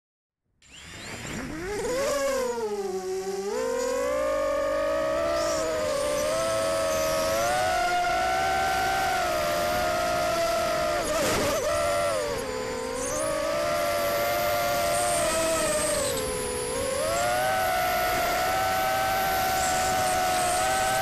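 Immersion Vortex FPV quadcopter's brushless motors and 5040 propellers, heard through the onboard camera: a whine that starts from silence about half a second in and climbs quickly in pitch as it lifts off, then holds steady, its pitch dipping and recovering a few times as the throttle changes.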